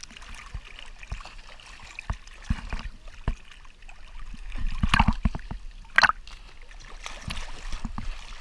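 Water lapping and sloshing around a kayak, with scattered low thumps and two louder splashes about five and six seconds in, the second the loudest.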